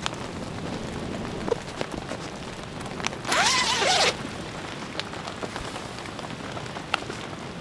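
Steady rain pattering, with one brief loud rasp about three seconds in that lasts under a second.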